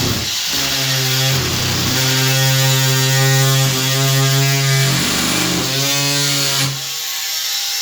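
Oscillating multi-tool running and cutting through the pipe held by a compression fitting's olive, a loud steady buzzing hum that dips briefly a couple of times as the blade bites and stops near the end.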